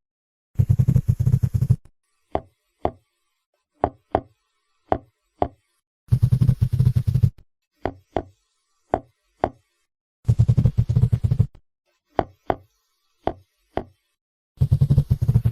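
Seahorse sounds: sharp single clicks, roughly two a second, broken four times by a loud, low rattling burst lasting about a second.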